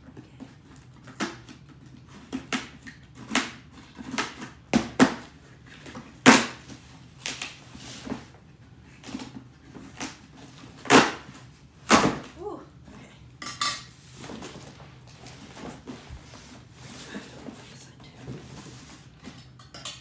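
Packing tape being picked at and torn off a large cardboard box, with cardboard scraping and rustling in irregular bursts. Two louder knocks come about halfway through as the box is turned over.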